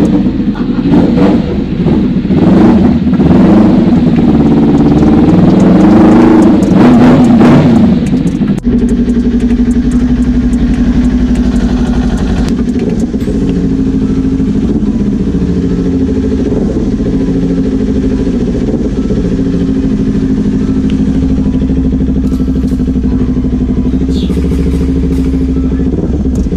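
Motorcycle engine revved several times, its pitch rising and falling, then settling into a steady running note about eight seconds in.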